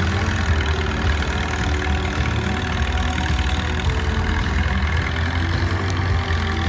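Vintage tractor engine running steadily under load as it drags a weight-transfer pulling sled, with a strong low rumble.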